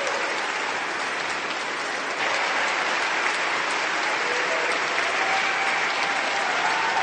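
Crowd applauding: dense, steady clapping that swells slightly about two seconds in.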